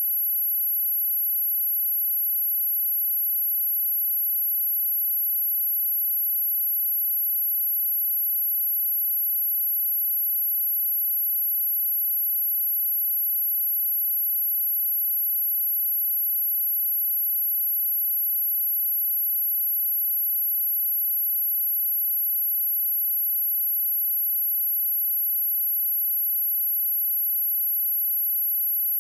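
A steady, unbroken high-pitched sine-wave test tone at 11684 Hz, one pure pitch held at constant level, used as a speaker test and speaker-cleaning tone.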